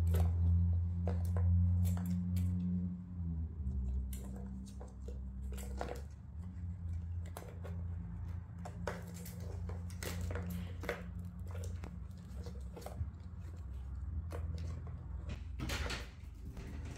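Plastic clicks and knocks of a ball rolling round the tracks of a plastic tower ball toy and of kittens' paws batting at it, irregular and scattered. A steady low hum underlies them, louder in the first few seconds.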